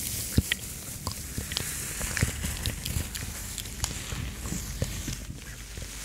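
Textile gloves rubbed and pressed together: a scratchy fabric rustle with many small, irregular crackles and clicks.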